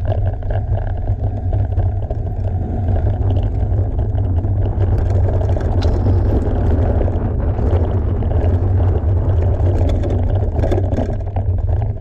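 Mountain bike ride noise: steady wind rumble on the microphone over tyres rolling on a rocky dirt trail, with scattered clicks and rattles from the bike.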